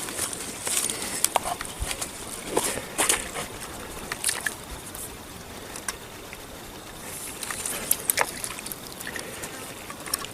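River water sloshing and trickling along the bank, with scattered sharp clicks and rustles.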